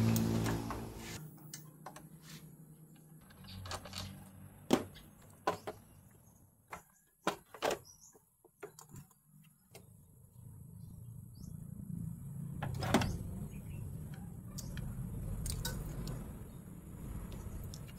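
Scattered clicks and metal clinks of hand tools working on a Nissan Almera engine while its intake manifold is taken off to reach the spark plugs. Background music fades out at the start, and a low hum comes in about halfway through.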